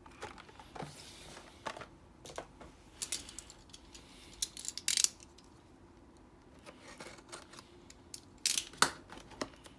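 Cardboard trading-card booster box being handled and opened: scattered light taps, scrapes and short rustles, busiest about three to five seconds in and again near the end.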